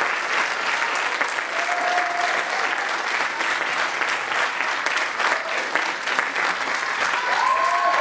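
Theatre audience applauding steadily at a curtain call, with a few cheers rising near the end.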